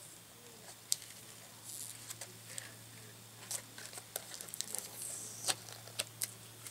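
Scattered light clicks and soft rustles of cardboard and plastic toy packaging being handled and sorted, over a faint steady low hum.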